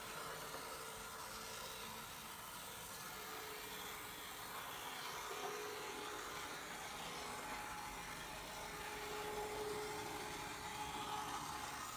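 Small electric motor and gears of an N scale Class B Shay's Searails PowerMAX power truck, whirring faintly and steadily as the model locomotive runs along the track.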